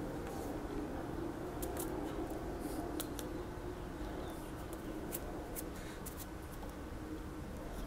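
Quiet background hum with about eight faint, sharp clicks and rubs scattered irregularly, the small contact sounds of hands and mouth while signing.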